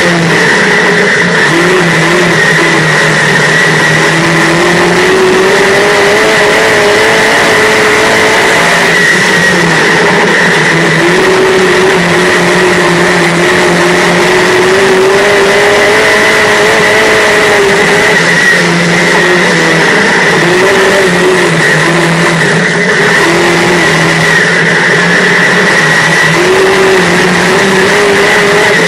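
Dirt-track modified race car's V8 engine heard from inside the cockpit, running hard at race speed, its pitch rising and falling every few seconds as the throttle comes on and off. A steady high whine runs over it.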